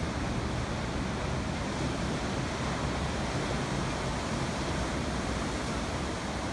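Atlantic surf breaking over rocky reefs and washing against shore rocks: a steady rush of water with a deep low rumble.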